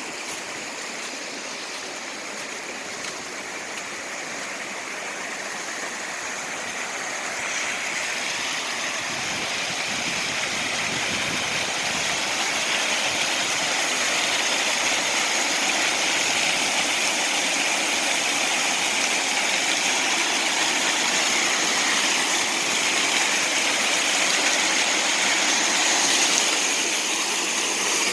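Small waterfall, about ten feet high and swollen by rain the day before, rushing steadily. The water noise grows louder through the first half, then holds steady.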